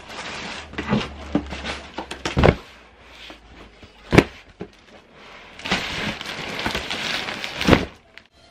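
Cardboard parcel boxes set down with several thuds onto a large cardboard box, the loudest about four seconds in, and a plastic mailer bag crinkling as it is put on top near the end.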